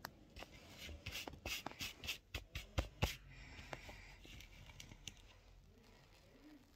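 A quick run of light clicks and scratchy taps from hands fiddling with small objects, packed together between about one and three seconds in, then only a few faint ticks.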